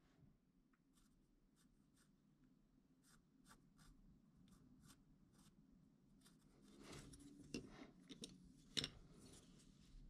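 Faint short scratching strokes of a hand tool on wood, two or three a second, becoming louder and more continuous a few seconds before the end, with one sharp click near the end.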